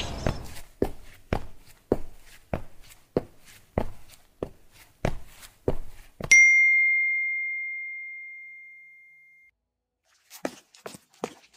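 Sharp, evenly spaced taps, about one every 0.6 s, over otherwise clean silence. About six seconds in a single bright, bell-like ding rings out and fades over about three seconds. After a short silence, quicker, irregular taps start near the end.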